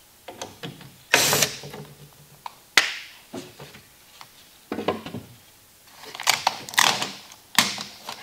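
A cordless drill runs briefly, about a second in, backing a screw out of an OSB crate panel, and a sharp click follows. After that comes a series of short scrapes and rustles as the loose board and the wrapped part inside the crate are handled.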